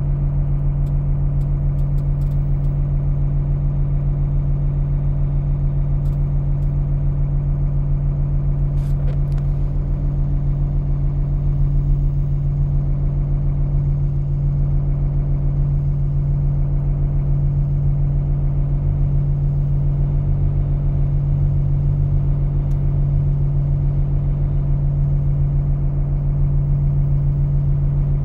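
Diesel engine of a heavy construction machine running steadily at an even speed, with a few faint clicks about one, six and nine seconds in.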